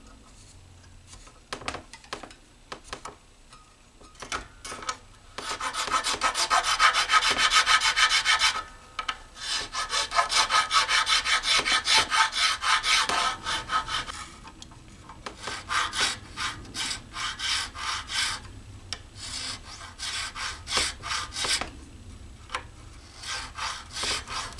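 A bass nut-slotting file rasping back and forth in a string slot of a Fender Precision Bass nut. It comes in runs of quick strokes, the longest and loudest in the middle, with short pauses between the runs.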